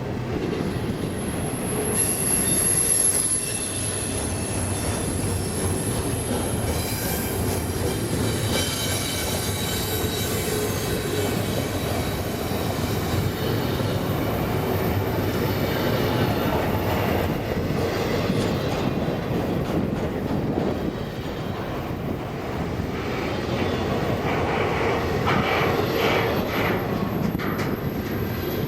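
A freight train's cars rolling past, a steady rumble with clattering wheels. A thin, high wheel squeal comes in about two seconds in and holds for several seconds.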